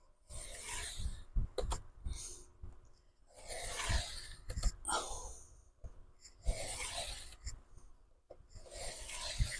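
Cutting through the cover of an old ring binder: four long scraping cuts, a couple of seconds apart.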